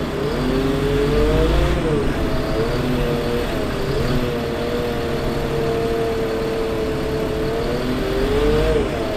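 Caterpillar C7 diesel engine of a Ford F750 bucket truck running with the boom's hydraulics working, a steady drone with a whine that dips and rises in pitch several times, holds steady through the middle, then rises and drops again near the end. A deeper rumble swells in the first couple of seconds and again near the end.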